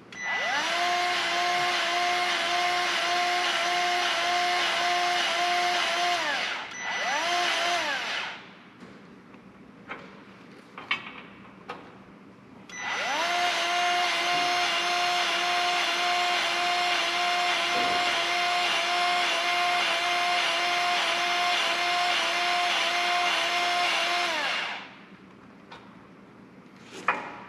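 Motor-driven grease gun running in three runs, a long one, a brief burst and a longer one, each spinning up and winding down, pumping grease into the upper and lower ball joint grease fittings of a rebuilt front end. Its steady motor whine pulses slightly with the pump strokes.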